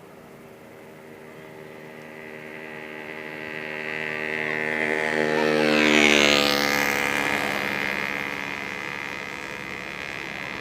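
Bus passing by: a steady engine drone that swells to its loudest about six seconds in and then fades, its pitch dropping slightly as it goes past.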